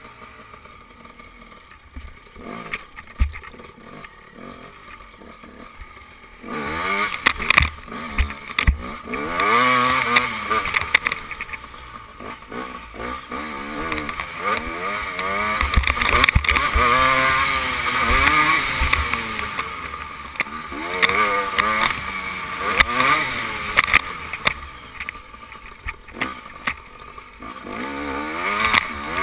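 KTM dirt bike engine being ridden hard, heard from the rider's helmet camera. It stays lower for the first six seconds or so, then revs up and down over and over as the bike accelerates, shifts and backs off.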